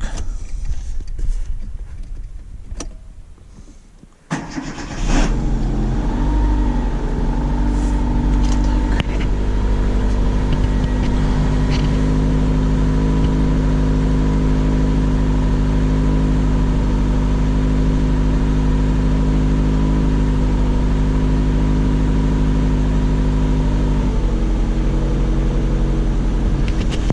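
Daewoo Sens four-cylinder petrol engine cranked and catching about four seconds in, then idling steadily with a thin whine above it. The idle note shifts slightly near the end.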